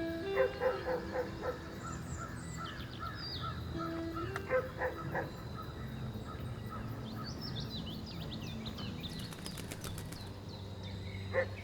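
Woodland birds chirping, with a run of about six loud harsh calls in the first second and a half and a few more about four and a half seconds in. Soft background music with held notes sits underneath.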